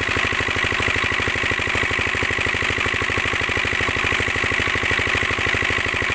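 Diesel engine of a shallow-tube-well irrigation pump running steadily with a fast, even beat, and pumped water gushing from its outlet pipe into the tank.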